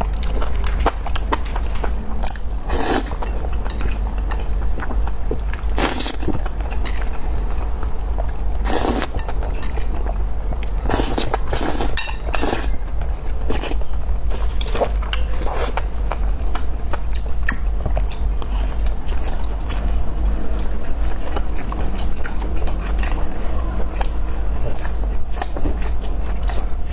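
Close-miked eating: chewing and biting with crisp crunches and sharp clicks, the loudest crunches coming every few seconds, and now and then a clink of tableware, over a steady low hum.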